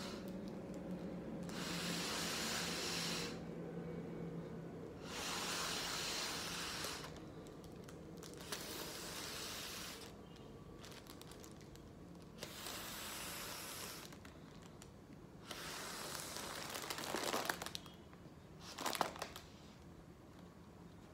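Breath blown through a straw into a foil balloon's valve: about six long airy puffs with short pauses between, the foil crinkling as the balloon fills, with sharp crackles near the end.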